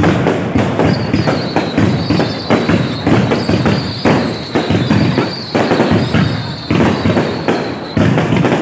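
Fireworks going off in a rapid, dense string of bangs, with a steady high whistle over them from about a second in until near the end.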